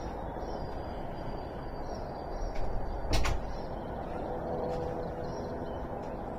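Outdoor dawn ambience: a steady low rumble with faint bird calls in the trees, and a single sharp click about three seconds in.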